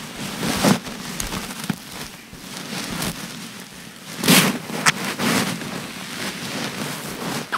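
A small congregation applauding, a steady patter of clapping with a few louder knocks along the way.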